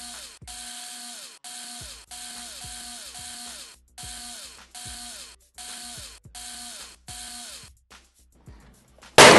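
Black & Decker Pivot Driver cordless screwdriver running in about ten short trigger bursts, its motor whine winding down in pitch at the end of each as it backs out plastic case screws. Near the end there is one loud sharp knock.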